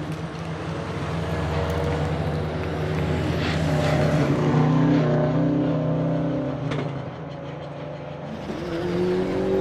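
Tuned Subaru Impreza WRX STi hatchback's turbocharged flat-four engine under hard acceleration on a hillclimb, swelling to its loudest about halfway through. There is a sharp crack about seven seconds in, after which the engine note dips and then rises again.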